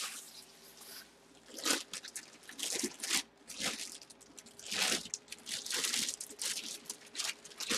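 Thin clear plastic bag crinkling and rustling in irregular bursts as hands pull it off a full-size football helmet.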